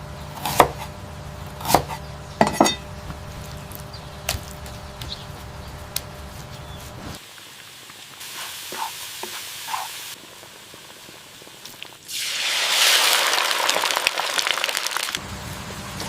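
Kitchen cooking sounds: utensils clinking against pots and dishes for the first few seconds, then, about twelve seconds in, food sizzling loudly in a hot pan for about three seconds.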